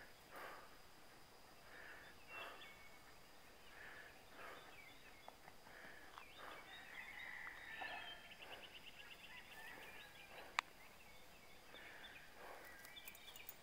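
Faint rural outdoor ambience with scattered bird calls and a rapid chirping trill about seven to nine seconds in, over a steady faint high hum. One sharp click comes a little later.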